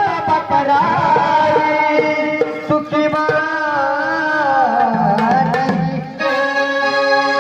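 Marathi gondhal folk music: an electronic organ playing a sustained, wavering melody over steady sambal drum strokes.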